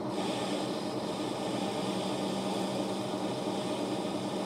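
Old Monarch engine lathe running steadily while a radius tool cuts into a 1045 steel shaft, a steady hum with a hiss from the cut.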